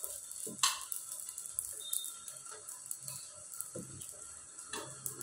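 Dosa batter cooking on a hot tawa: a faint, steady sizzle, with two small sharp clicks, about a second in and near the end.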